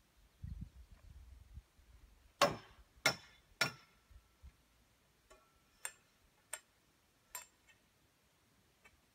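Metallic clanks with a short ring, from steel greenhouse pipes being worked: three loud clanks about half a second apart, then four or five lighter ones spread over the next few seconds.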